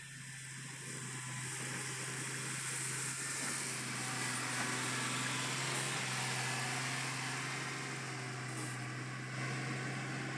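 Caterpillar motor grader's diesel engine running under load while its blade pushes and spreads gravel. The sound gets louder over the first few seconds as the grader comes near, then stays steady.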